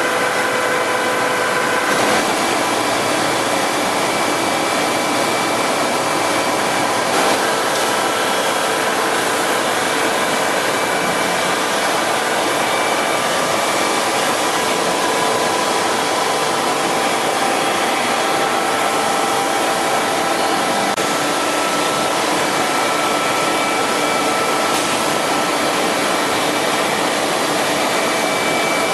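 Collet & Engelhard BFfb 130 NU table-type boring mill running: a loud, steady mechanical whir with several steady whining tones over it.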